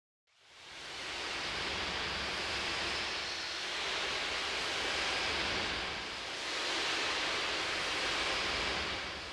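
A rushing wash of noise that fades in within the first second and swells twice, once around the middle and again near the end.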